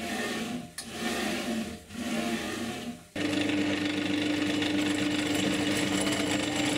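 Three short mechanical bursts about a second apart, then a drill press starts running steadily with a hole saw cutting into an aluminium extrusion end profile.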